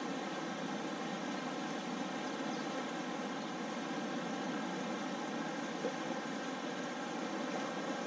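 Fast-flowing river current rushing over shallow riffles: a steady, even rush of water.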